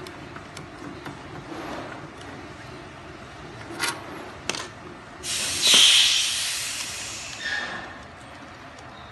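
A couple of sharp tool clicks, then a loud scraping hiss lasting about two seconds that starts suddenly and fades: a plastic miniature circuit breaker (air switch) being pried and worked loose from its metal enclosure with a screwdriver.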